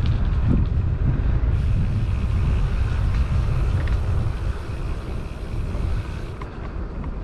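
Wind buffeting the action-camera microphone as a Diamondback Haanjo gravel bicycle rolls along a paved trail, a steady low rumble with tyre noise and small rattling ticks. It eases a little in the second half.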